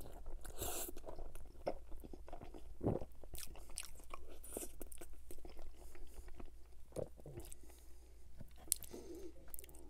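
Close-miked chewing of a mouthful of poutine (fries, cheese curds and gravy): wet mouth sounds with many small clicks and pops.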